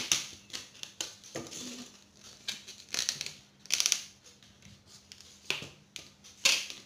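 Long latex modelling balloon being handled and twisted by hand: a scattering of short rubbery squeaks and rubbing noises with pauses between them.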